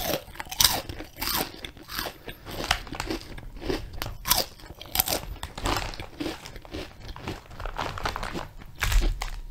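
Close-miked biting and chewing of a crunchy snack into a furry-windscreened microphone, with irregular sharp crunches a few times a second.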